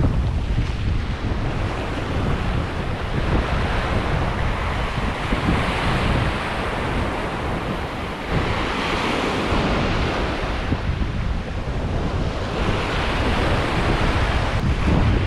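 Small waves breaking and washing up a sandy beach, the surf swelling and falling back every few seconds, with wind buffeting the microphone in a steady low rumble.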